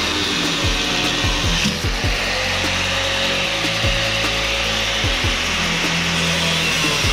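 Angle grinder with a cutting disc cutting through a seized steel body bolt, a loud steady grinding. The bolts are cut off because they are seized solid and have stripped every socket and easy-out.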